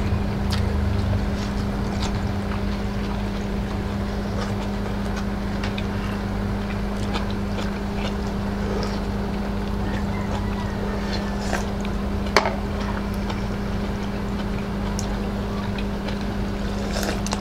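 A steady low hum and rumble from a machine in the room, with scattered light clicks of a metal spoon against the pot and bowl and eating noises; one sharper click about twelve seconds in.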